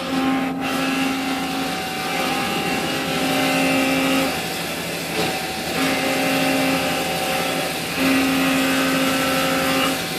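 Mazak 410A vertical machining center running under power: a steady machine hum with a pitched whine that comes on and cuts out repeatedly, in stretches of one to two seconds.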